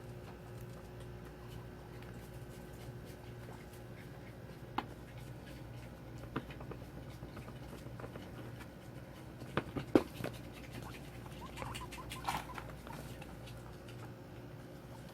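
Pet guinea pigs moving about their cage: scattered light taps and scratches over a steady low hum, with a cluster of sharper clicks about ten seconds in and a brief squeak about twelve seconds in.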